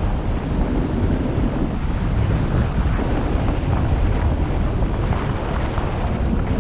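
Wind rushing over the microphone of a camera mounted on a hang glider in soaring flight. It is a steady, low rumbling wind noise with no pauses.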